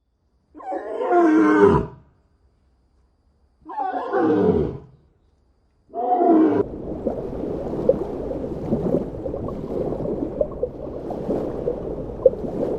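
An animal calling three times, each call sliding down steeply in pitch, followed by a rough, steady noise with scattered clicks.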